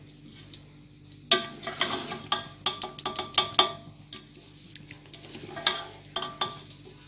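A spoon scraping and clinking against the sides of an aluminium pot as freshly steamed (dum) sweet rice is turned over and mixed, in irregular runs of clicks starting about a second in and again near the end, over a faint steady hum.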